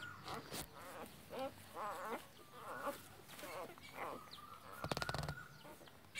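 Newborn puppies whimpering and squeaking while nursing: short, wavering calls repeated every half second or so, with a quick run of clicks about five seconds in.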